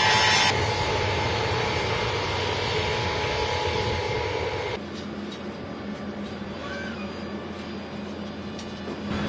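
Heavy engines running steadily, with abrupt changes in the noise about half a second in and again about five seconds in, where it drops quieter.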